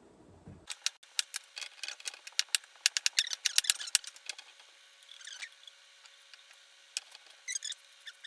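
Knife chopping cucumbers into chunks on a cutting board: a run of quick, irregular light clicks starting about a second in.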